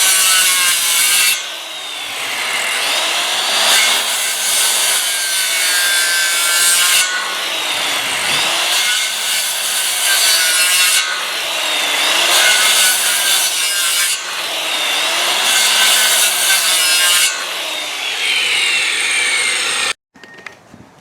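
Circular saw cutting pass after pass into a wooden 4x4 post, wasting out a 1 3/4-inch-deep notch; the blade's whine dips in pitch each time it bites into the wood and recovers. The sound cuts off suddenly near the end.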